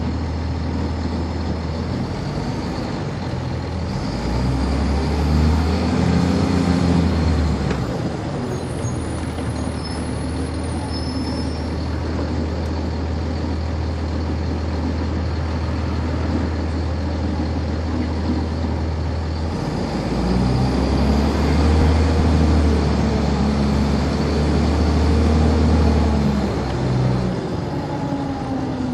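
Cummins ISC six-cylinder diesel of a 1999 NovaBus RTS transit bus heard from on board, idling in traffic and twice pulling away, about four seconds in and about twenty seconds in, its engine note rising and stepping through the automatic transmission's gears before settling back to idle. A thin high squeal sounds briefly about eight seconds in.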